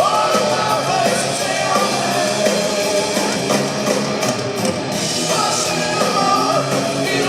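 Hard rock band playing live, with singing and electric guitar over the full band.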